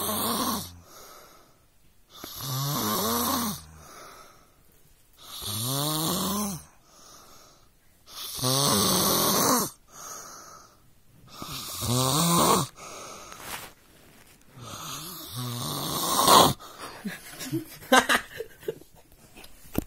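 A child snoring in deep sleep: a loud snore about every three seconds, each lasting about a second and rising in pitch, with quieter breaths between. Near the end the rhythm breaks into a few short, irregular sounds.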